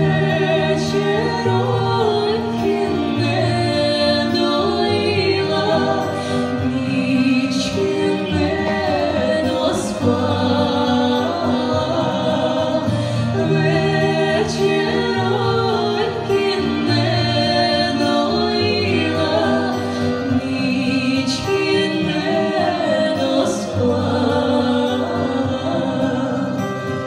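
A women's vocal group singing a Ukrainian folk song in harmony over instrumental backing, with long held notes that waver in pitch.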